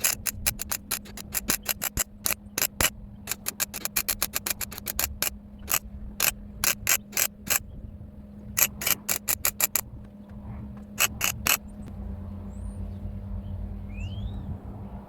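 MIG welder stitch-welding a steel repair patch into car bodywork: a quick series of short bursts in several groups, stopping about eleven and a half seconds in. A steady low hum runs underneath.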